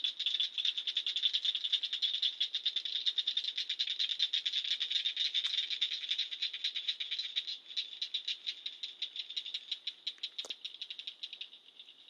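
Dense dusk chorus of calling animals, a fast rattling trill that runs steadily and then thins out over the last few seconds, with one sharp click a little before the end.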